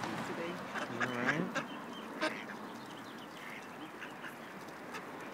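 Ducks quacking, with a short run of quick quacks about a second in, over scattered sharp taps.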